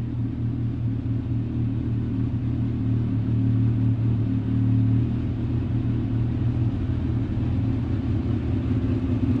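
Kawasaki Ninja ZX6R inline-four engine with an IXIL aftermarket exhaust, running at a steady engine speed with a deep, even exhaust note.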